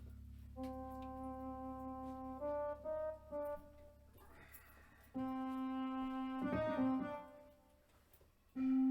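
Keyboard instrument playing sustained, organ-like chords and short notes with a brass-like tone, stopping and restarting several times as if stops or sounds are being tried out.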